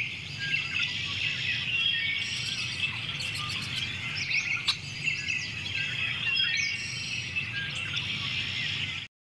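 Many birds chirping and calling at once, with quick overlapping whistles, trills and short gliding notes; it cuts off abruptly near the end.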